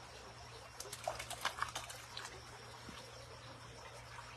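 Shallow stream water trickling, with a quick run of small splashes and ticks between about one and two seconds in.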